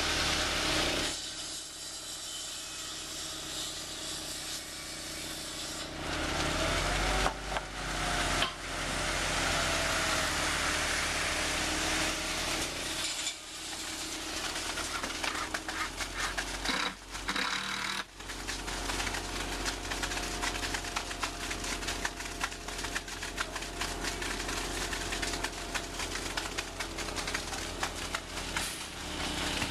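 Ready-mix concrete truck running while wet concrete pours down its metal chute into a form: a steady gritty scraping and sloshing over the hum of the truck's engine and turning drum, louder from about six seconds in.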